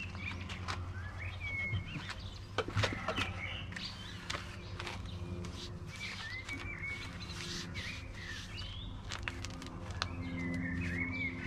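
Small birds chirping in short, repeated calls over a steady low hum, with scattered sharp clicks and knocks.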